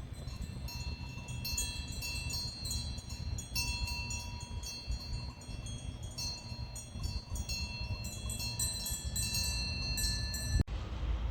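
Small metal chimes tinkling irregularly, with a steady low rumble underneath.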